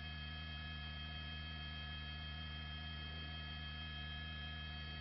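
Steady electrical hum on a helicopter intercom audio feed, holding a fixed set of tones at an even level.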